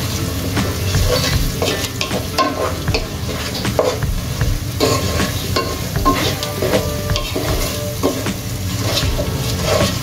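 Wooden spatula stirring and scraping onions and spice pastes frying in oil in a nonstick pan, over a steady sizzle, with irregular scraping strokes throughout.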